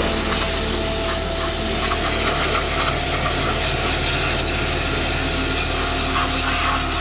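High-pressure washer jet spraying water against the underside of a pickup's steel bonnet: a steady hiss of spray.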